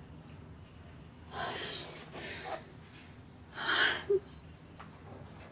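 A woman's pained, breathy gasps, two of them, about a second and a half and about three and a half seconds in, the second ending in a short voiced "ah": she is pressing on a bruise on her forehead.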